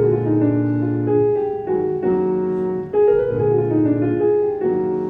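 Keyboard piano playing a 7-3-6 passing-chord progression in F sharp: sustained chords with a descending line over them, a new chord struck about every one to two seconds.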